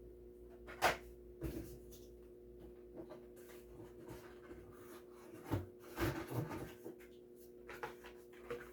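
Blister-carded Hot Wheels die-cast cars being handled: scattered light plastic and cardboard clicks and rustles, the sharpest about a second in and a cluster around six seconds in, over a faint steady hum.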